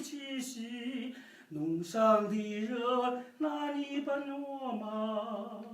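A man's voice singing slow, long-held notes without accompaniment, the pitch stepping between a few notes with short breaths between them.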